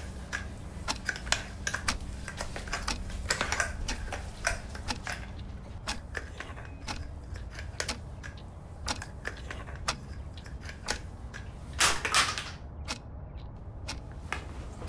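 Broom sweeping a hard floor: irregular short scratchy strokes and clicks of bristles, with a louder stroke about twelve seconds in.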